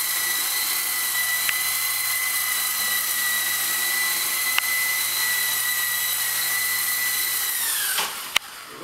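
E-flite CX3 Huey micro coaxial RC helicopter hovering, its electric motors and rotors making a steady high whine with a couple of faint ticks. Near the end the whine quickly winds down and drops in pitch as it lands, followed by a sharp click.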